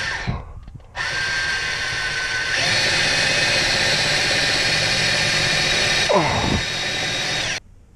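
Cordless drill driving a screw to fix a pipe strap. A short run stops just after the start, and after a pause of about a second a longer run begins, picks up speed about two and a half seconds in, and stops near the end.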